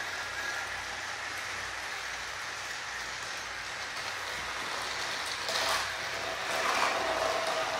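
Several battery-powered toy trains running on plastic track, with a steady mechanical rattle from their small motors and wheels. It grows a little louder, with a couple of knocks, in the last few seconds.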